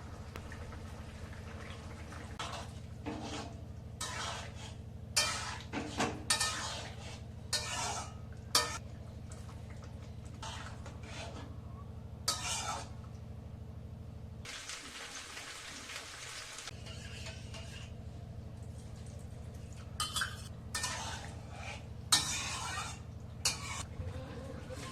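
A metal spoon or spatula scraping and knocking against a cooking pot in irregular strokes while food is stirred, over a steady low hum. About fifteen seconds in there is a hiss lasting about two seconds.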